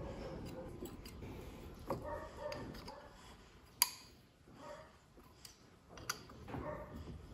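Small metal parts being handled and fitted by hand into a steel clutch plate: light handling noise with a few scattered sharp metallic clicks, the sharpest a little under four seconds in.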